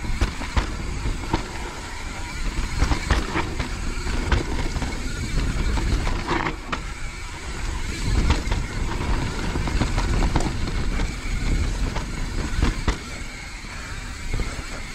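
Mountain bike riding down a rough trail over wet dirt and roots: a continuous low rumble of tyres and frame, broken by many sharp knocks and rattles as the bike hits roots and small drops.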